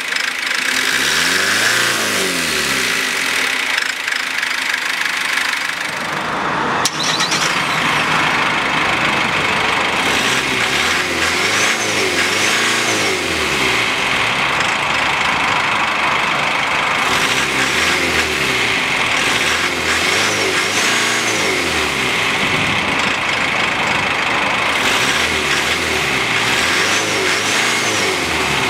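2014 GAZelle Next's four-cylinder diesel engine idling steadily, with a single sharp click about seven seconds in.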